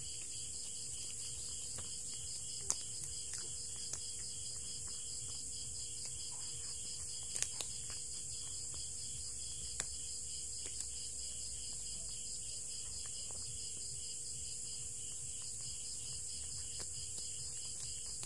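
Steady chorus of night insects, a high, rapidly pulsing chirring that goes on unbroken. Over it come a few soft, sharp clicks of a cat chewing its food, most of them in the middle.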